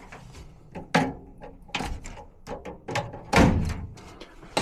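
A few clunks and knocks of hands working inside a furnace's blower compartment, moving the blower wiring out of the way, with small clicks between; the loudest knock comes about three and a half seconds in.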